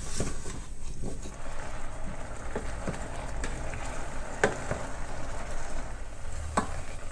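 Wooden spoon stirring diced apples in a stainless steel saucepan over medium heat, the pieces sliding against each other and the pan, over a steady faint sizzle from the sugar and water heating beneath. Two sharp knocks of the spoon on the pan, one about halfway through and one near the end.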